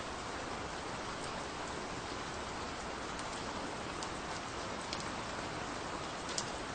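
Steady, gentle rain falling, a continuous patter with scattered individual drops ticking out above it, one louder drop near the end.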